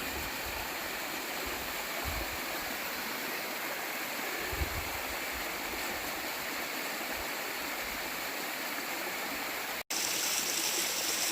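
Rushing water from a stream or small waterfall, a steady even hiss, with a few short low thumps. The rush changes abruptly about ten seconds in, becoming brighter and hissier.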